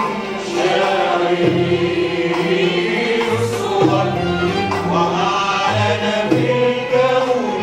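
Choir singing an Arabic song with violin accompaniment, sustained voices over low notes that change about once a second.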